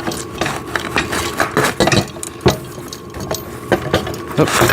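Irregular clicks, light knocks and rustling from handling the machine's padded seat cushions and their zippered covers as they are fitted over the wooden backing plates.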